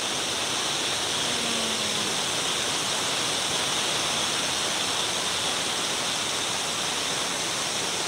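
Steady rushing hiss of Shiraito Falls, many thin streams of water pouring down a wide rock face.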